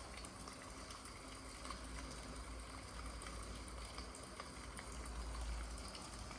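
Water heating to a boil: a steady, faint bubbling hiss over a low rumble, with small ticks.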